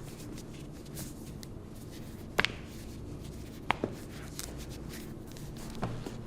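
Foot joints cracking during a chiropractic foot adjustment: a few sharp pops, the loudest a quick double about two and a half seconds in, then more near four and six seconds, over soft sounds of hands on skin.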